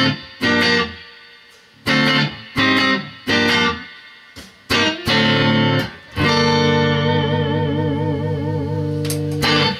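Stratocaster-style electric guitar playing a series of short, clipped chord stabs, then a chord about six seconds in that is held for some three seconds, wavering with vibrato, before it stops near the end.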